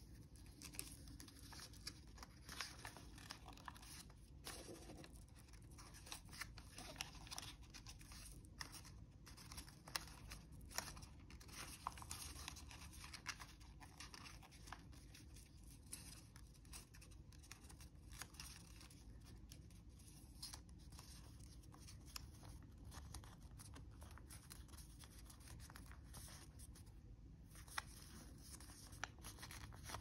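Faint rustling and crinkling of a sheet of origami paper being folded and creased by hand, with many small crackles as the folds are pressed.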